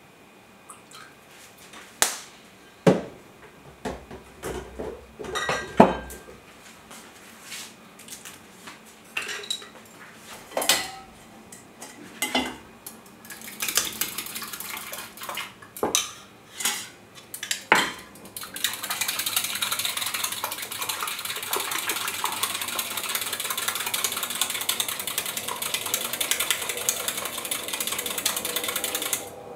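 Scattered clinks and knocks of kitchen utensils, a glass jug and a metal plate, then from about 18 seconds in a fast, continuous clatter of a utensil beating eggs and water in a glass measuring jug, which stops just before the end.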